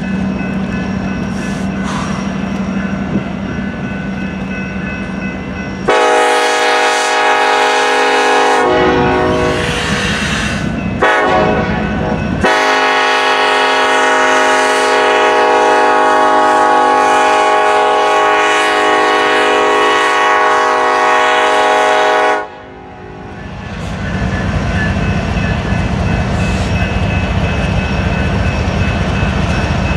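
Union Pacific diesel locomotives rolling past, their engines and wheels rumbling steadily. About six seconds in, a locomotive horn of several notes sounding together blows two long blasts, a short one, then a long blast held about ten seconds: the standard grade-crossing warning. The rumble builds back after the horn stops.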